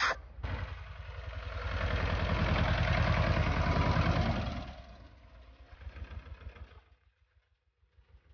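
Ursus C-330 tractor's two-cylinder diesel engine running with a rapid, even beat. It grows louder to a peak in the middle and dies away about five seconds in, with a faint beat going on near the end.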